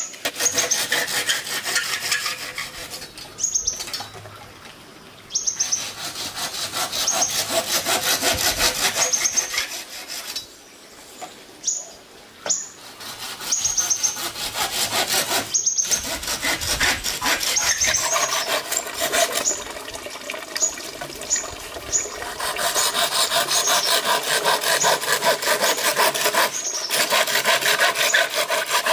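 Hand saw cutting green bamboo into short tubes, in quick back-and-forth strokes that stop briefly a couple of times.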